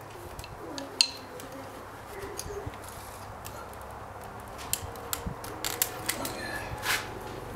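Light metallic clinks, taps and knocks as the cylinder head is worked loose and lifted off a 2001 Kawasaki KLR 650's cylinder. There is a sharp clink about a second in and a quick run of knocks and clicks near the end.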